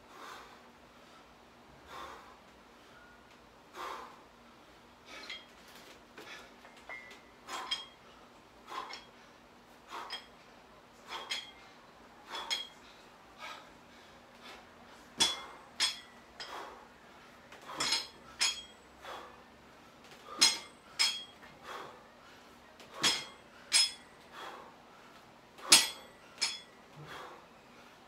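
Metal clinks from a pair of plate-loaded dumbbells knocking and rattling with each rep, mixed with a man's hard exercise breathing. The sounds come about once a second, getting louder and sharper in the second half.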